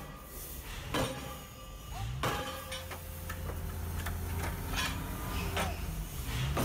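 Hydraulic forging hammer working a red-hot steel coupling blank: a steady low machinery hum with several sharp knocks about a second apart as the ram strikes the hot steel.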